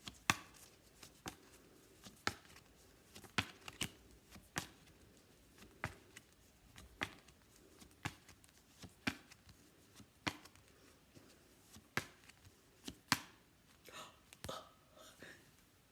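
Sharp taps and flicks of flashcards being handled one at a time, about one a second with a few quicker pairs, with faint soft sounds near the end.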